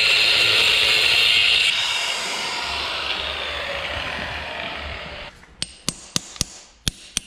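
An angle grinder cuts into an over-tightened camshaft bolt on a Subaru cylinder head, with a loud, steady grinding. It then winds down with falling pitch and stops about five seconds in. Six sharp hammer blows on a steel punch follow near the end.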